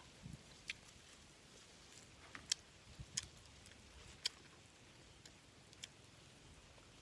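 Eating sounds: a handful of sharp mouth clicks and smacks from chewing grilled meat, scattered through with a second or so between them, the loudest two about midway and a little after.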